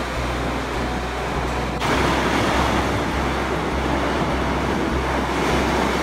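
Sea surf surging into the rock cliffs and crashing, a broad rush of water that swells louder about two seconds in and holds.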